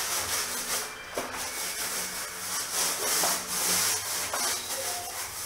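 Paint roller on an extension pole rolling wet paint onto a wall: a sticky, hissing rub that swells and fades with each back-and-forth stroke, about once a second.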